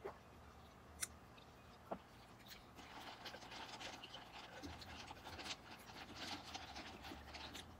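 Faint eating and drinking mouth sounds from sipping iced coffee through a straw and chewing: three sharp clicks in the first two seconds, then soft crackling for the rest.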